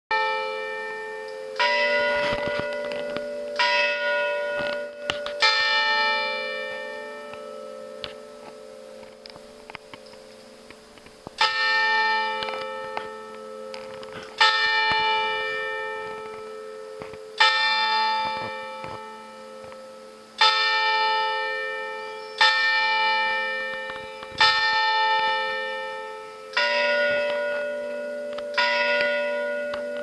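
Church bells in a tower ringing to call people to a service: a strike every two to three seconds, each leaving a long ringing hum that slowly dies away, with a lull of a few seconds about a third of the way in.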